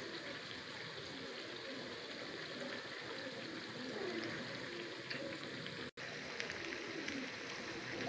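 Thin potato slices deep-frying in hot oil in a pan: a steady sizzle with fine crackling. It breaks off for an instant about six seconds in.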